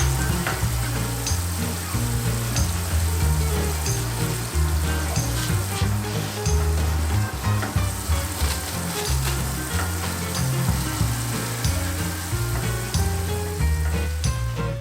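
Background music with a bass line stepping between notes, under a steady crackling hiss dotted with small clicks; the hiss cuts off at the very end.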